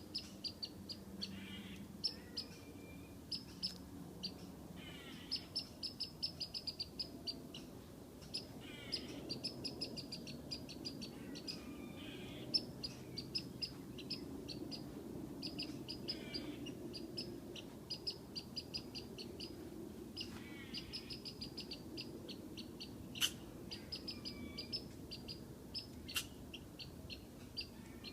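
Squirrel alarm calling at a cat: repeated rapid runs of short, sharp high chirps, several runs a few seconds apart, with occasional short rasping buzzes between them. Two sharp clicks sound near the end.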